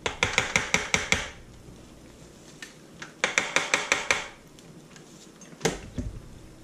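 Stick blender knocking rapidly against the ceramic insert of a crock pot as it works thick hot-process soap paste. The knocking comes in two quick runs of about a second each, then one louder knock near the end.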